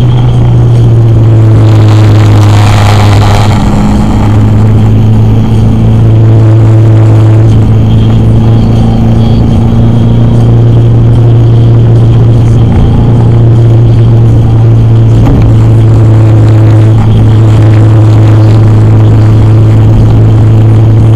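A car driving along a road, heard from inside the cabin through a dashcam microphone: a steady, loud low drone of engine and road noise. About two seconds in there is a brief louder rushing sound.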